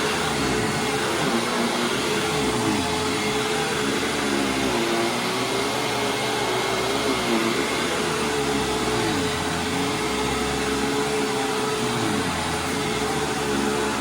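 Hoover WindTunnel Supreme upright vacuum cleaner running on carpet: a steady rushing hum whose motor tones waver up and down in pitch.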